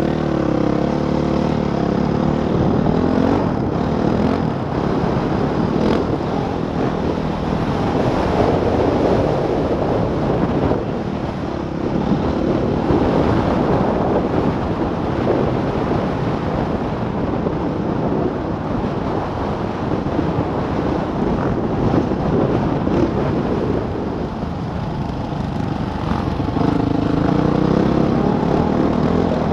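Dirt bike engine heard from on board the riding bike. It revs up and down as the rider works the throttle, and strong wind rush across the microphone fills the stretches in between.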